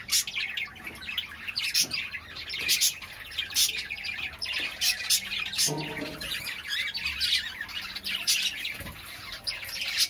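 A group of budgerigars chattering: rapid, overlapping sharp chirps and squawks.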